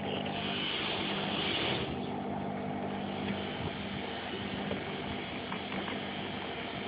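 Steady mechanical hum, like an engine running in the background, with a hiss over the first couple of seconds and a few faint small clicks.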